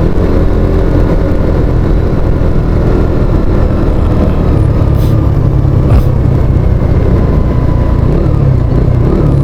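A motor vehicle's engine running steadily with road noise. Two short clicks come about five and six seconds in.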